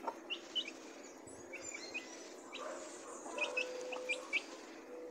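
Young chicks peeping while they feed: short high chirps, about a dozen, scattered unevenly, with a small cluster in the second half.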